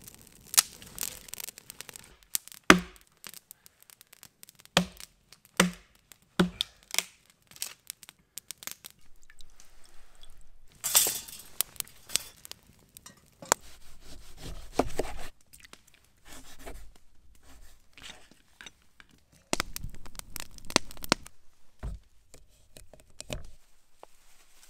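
Camp fire-making and breakfast preparation: four sharp knocks in the first seven seconds, then uneven scraping, tearing and crinkling of packaging and utensils, with the rustle of a foil coffee bag near the end.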